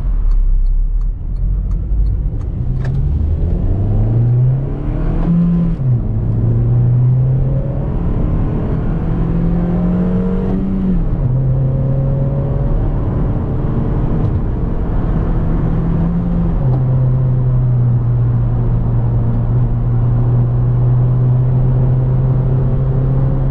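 Eighth-generation Honda Civic (Reborn) engine, heard from inside the cabin, pulling hard through the gears. Its note climbs, drops at each gear change about six, eleven and sixteen seconds in, then holds steady at cruising speed.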